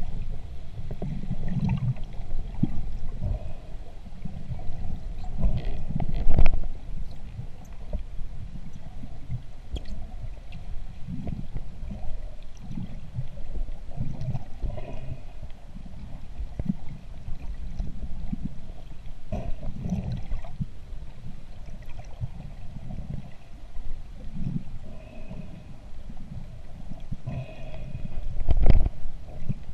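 Muffled underwater water noise picked up by a submerged camera: low, irregular rumbling and gurgling of water moving past as the diver swims. There are a few sharper knocks, the loudest thumps about six seconds in and again near the end.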